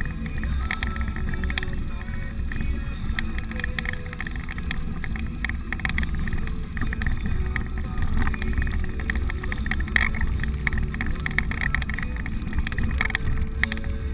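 Inside a 4x4's cabin crawling over a rough dirt trail: a steady low drone of engine and tyres, with frequent rattles and knocks as the vehicle bounces over the ruts.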